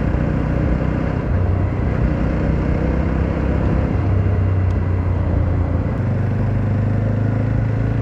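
Jawa 42 2.1's single-cylinder engine running under way. Its low note shifts pitch a few times as the throttle changes, over steady wind and road noise.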